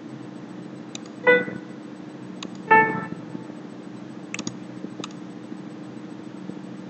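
Two short single notes played back by MuseScore notation software as notes are entered on the staff, about a second and a half apart, each dying away quickly. Mouse clicks come before each note and twice more later, over a steady low computer hum.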